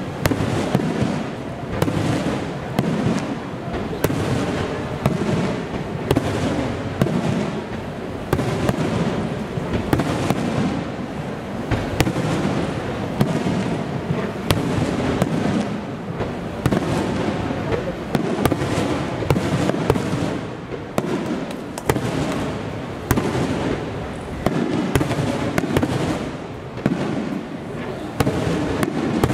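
Aerial fireworks shells bursting one after another in a continuous display: sharp bangs about every second, with a dense wash of sound between them.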